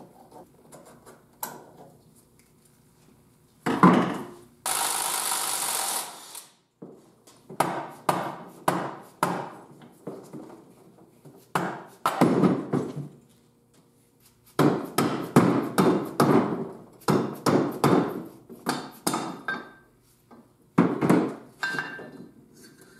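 Dead-blow mallet striking the aluminum housing of an NP231 transfer case again and again, in irregular runs of sharp knocks, to break the case halves apart. Near the start comes a single loud knock, followed by a steady hiss of about a second and a half.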